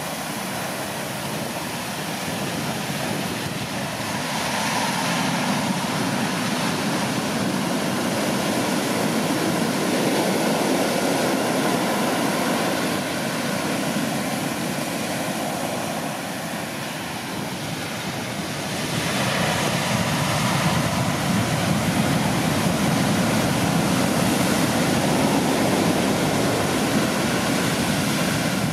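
Heavy storm-swell shore break: waves crashing and foam washing up the sand in a continuous rushing, swelling louder about five seconds in and again from about nineteen seconds on.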